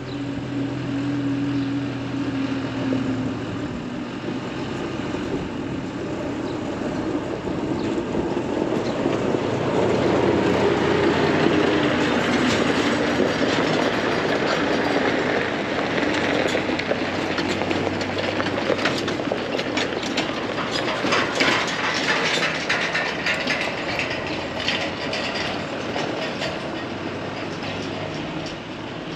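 Tractor running in the field, pulling a straw baler whose mechanism clatters steadily, louder from about a third of the way in.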